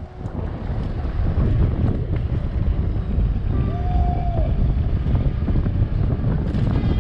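Wind rushing over the chest-mounted GoPro's microphone as a BMX bike speeds downhill, a steady loud low rumble. A brief, faint held tone sounds about four seconds in.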